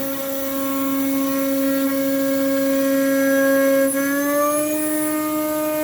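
CNC router spindle whining at a steady pitch while milling the outside contour of a 6061 aluminium part. About four seconds in the whine slides up to a higher pitch and holds: the spindle is changing speed on its own during the operation, a fault whose cause is unknown.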